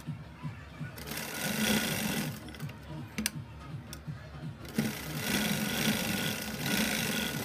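Black domestic sewing machine stitching through cotton fabric in two runs: a short one about a second in, and a longer one from about the middle to near the end.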